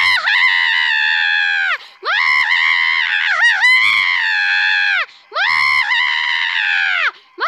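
A man screaming in agony: three long, high-pitched screams with short breaks between them, each one falling in pitch as it trails off.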